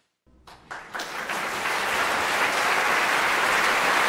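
Audience applauding: after a brief silence it sets in within about a second and holds at a steady level.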